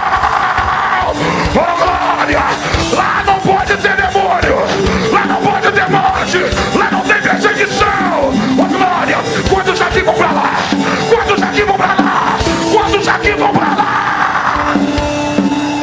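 Loud live worship-band music with drums, with a congregation shouting and cheering over it and a man yelling into a microphone.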